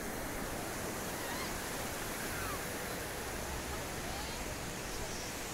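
Steady hiss and wash of ocean surf on a sandy beach.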